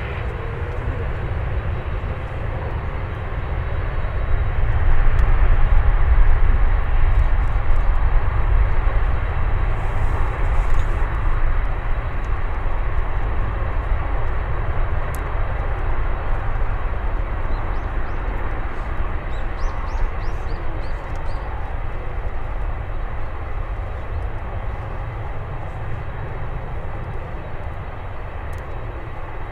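Airbus A380-841's four Rolls-Royce Trent 970 turbofans at takeoff thrust: a deep jet rumble that swells about five seconds in as the airliner rolls away down the runway, then slowly fades.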